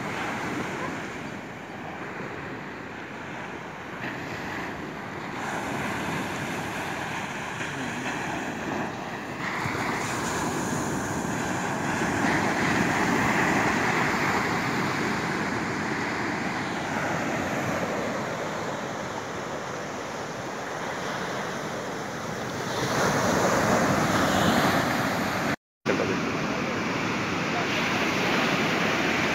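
Surf breaking and washing up a sandy beach, with wind on the microphone; the wash swells and eases as the waves come in. The sound cuts out for an instant about three-quarters of the way through.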